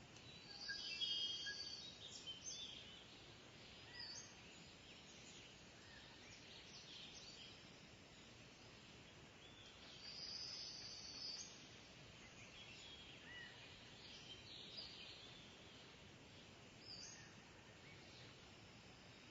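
Kingfisher calling: two bouts of high-pitched calls, about a second in and about ten seconds in, with scattered short chirps between them over faint outdoor background.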